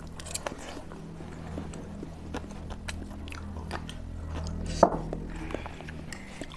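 Close-up eating sounds: instant noodles being bitten and chewed, with scattered small clicks and one sharper knock about two-thirds of the way through.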